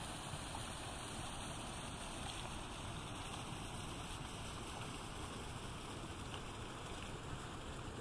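Steady rush of a partly frozen stream running beneath snow and ice.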